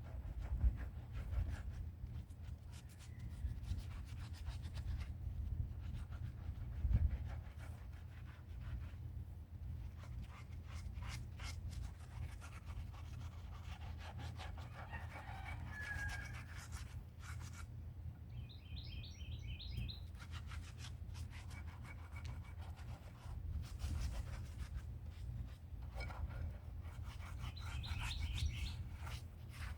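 Repeated scrubbing strokes on old concrete of a bird bath being cleaned by hand. A bird chirps briefly about two-thirds of the way in and again near the end.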